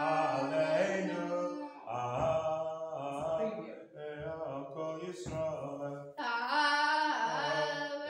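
Hebrew liturgy chanted to a traditional prayer melody, sung in about four phrases with brief pauses between them.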